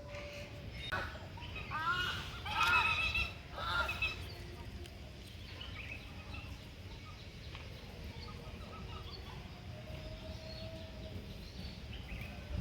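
Chickens clucking, a run of short calls in the first few seconds, over a low steady rumble of wind on the microphone.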